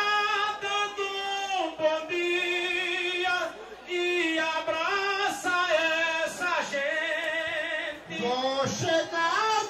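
A single high voice singing a drawn-out improvised verse of maracatu rural, holding long notes with vibrato and sliding down in pitch near the end.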